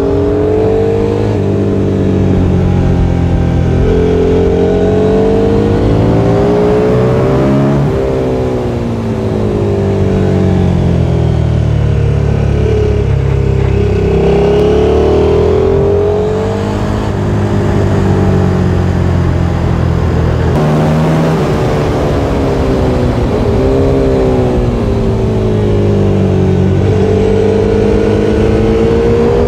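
Sport motorcycle engine heard onboard at speed, revving up through the gears and falling back again and again as it accelerates and slows for corners.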